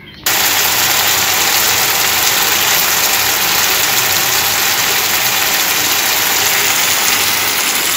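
Chicken curry bubbling and sizzling in a frying pan on the stove, a loud steady hiss that starts suddenly just after the beginning.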